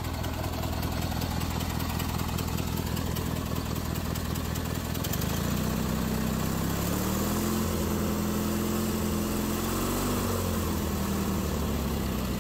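Rebuilt Briggs & Stratton opposed-twin engine running in a Roper 16T garden tractor. About halfway through its speed rises, wavers for a few seconds, then drops back near the end; it runs really good on its freshly adjusted governor.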